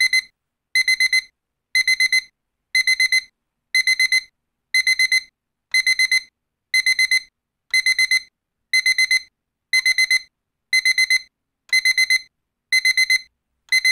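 Electronic wake-up alarm beeping: groups of four quick, high-pitched beeps, repeating evenly about once a second.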